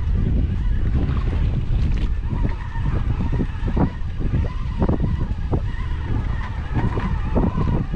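Wind buffeting the microphone in a steady low rumble, with small waves splashing and slapping against the side of a small boat.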